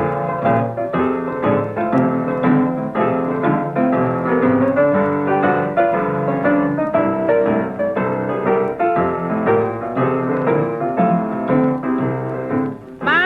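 Piano playing the instrumental introduction of a 1936 blues record, a busy run of struck notes with the dull, top-less sound of an old 78.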